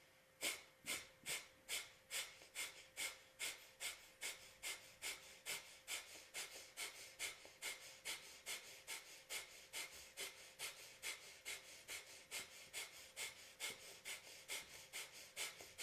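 Breath of fire: a person's rapid, forceful puffs of breath out through the nose, evenly paced at about two and a half a second, starting about half a second in.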